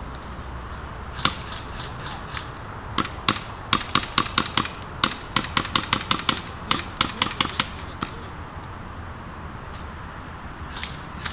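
Airsoft guns firing: a single sharp shot about a second in, then a dense, irregular string of sharp cracks for several seconds, and a last shot near eight seconds.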